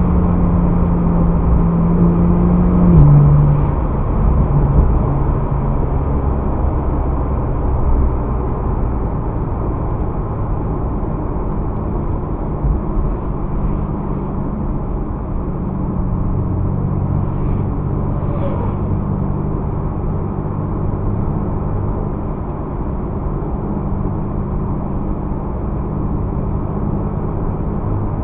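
Car engine and road rumble heard from inside the cabin through a dashcam's narrow-band microphone, steady and low, with the engine note dropping about three seconds in.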